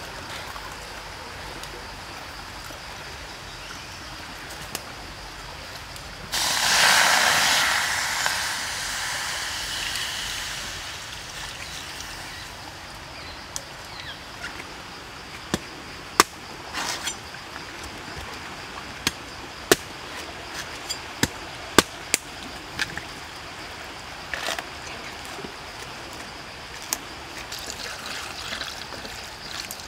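Coconut water poured from a freshly opened green coconut into a wok of blue crabs on a wood fire. About six seconds in comes a sudden loud rush of liquid that fades over several seconds. It is followed by scattered sharp knocks of a machete on the coconut, and a trickling pour near the end.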